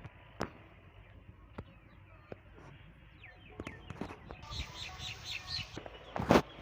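Small birds chirping around a goat farm, with a quick run of about five high chirps a little past halfway. Scattered light clicks and knocks throughout, and a short loud burst near the end.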